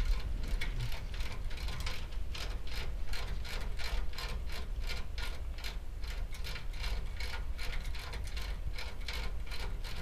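Ratchet wrench clicking quickly and evenly, several clicks a second, as a service valve stem on an air-conditioner condensing unit is turned, over a low steady hum.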